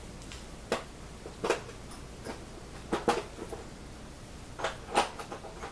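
A handful of sharp, irregular clicks and knocks as hand tools for chisel sharpening, the chisel and its honing guide, are picked up and set down on a workbench.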